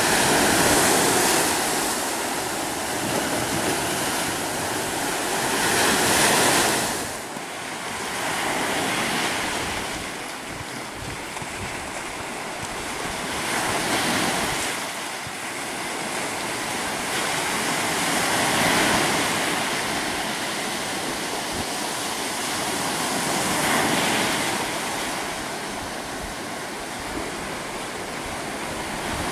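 Sea surf breaking on the shore, a steady wash of white water that swells into a louder crash every few seconds.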